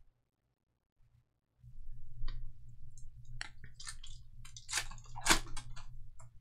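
A foil trading-card pack wrapper being torn open and crinkled by hand in a run of short crackles, loudest near the end. It begins after a second and a half of silence.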